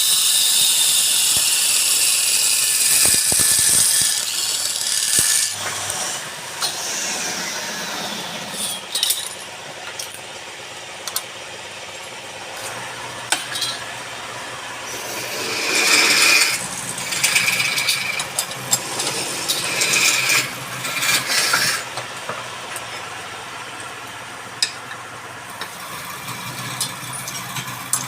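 A wood lathe running while a turning tool cuts into the spinning wood, a loud hissing cut for the first five seconds, then quieter, with further short bursts of cutting partway through and near the middle.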